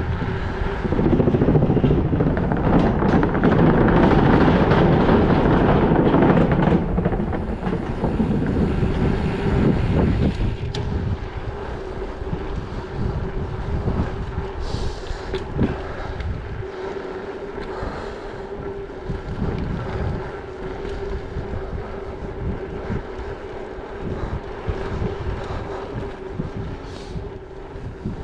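Bicycle riding noise with wind rushing over the microphone: the tyres rumble loudly over a bridge deck for the first six or seven seconds, then roll more quietly on a paved path.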